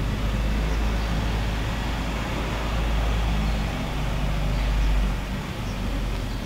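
Steady deep outdoor rumble with a hiss above it, swelling briefly about five seconds in.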